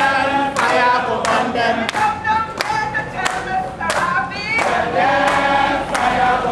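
A group of demonstrators singing together and clapping their hands in time, about three claps every two seconds.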